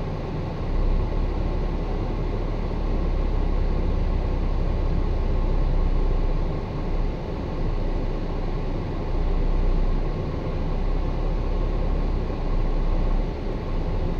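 Heavy truck's diesel engine running, heard from inside the cab: a low rumble that swells about a second in and then rises and falls as the truck is driven.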